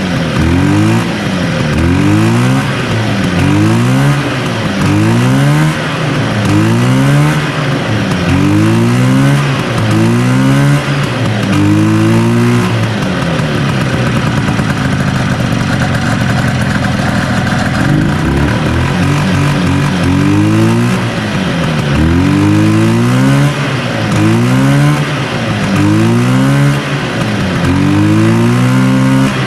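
Sachs 440 twin-cylinder two-stroke snowmobile engine being blipped on the throttle over and over, its pitch rising and falling about once a second. Partway through it settles to a lower, steadier run for several seconds, then the throttle blips resume. The engine is running rough on weak, intermittent spark to one cylinder.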